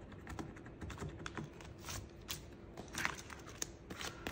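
Paper dollar bills and a vinyl cash-binder pocket handled by hand, giving irregular light rustles and clicks that grow busier in the second half.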